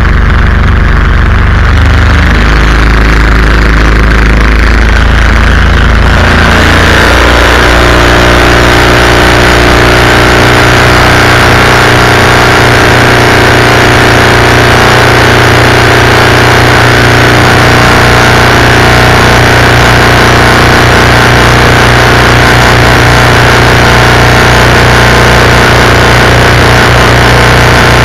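Predator 212cc single-cylinder four-stroke engine running loud and steady. About six seconds in it picks up speed to a higher, busier note, then holds there.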